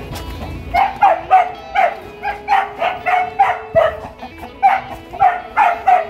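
A dog barking over and over, in runs of three to six short barks with brief pauses between, over background music with long held notes.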